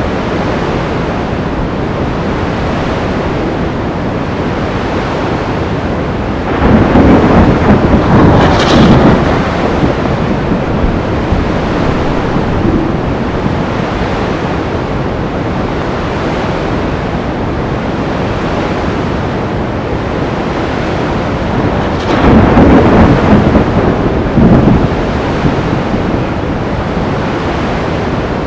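Sea storm ambience: a steady rush of surf and wind, with two louder rumbling crashes, one about a quarter of the way in and one about three quarters of the way in.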